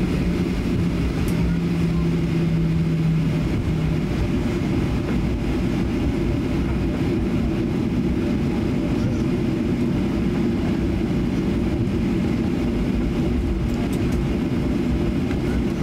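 Steady cabin noise inside a Boeing 737-800 taxiing, its CFM56 engines at low taxi power giving an even low rumble. A low steady hum drops slightly in pitch about a second in and stops about four seconds in.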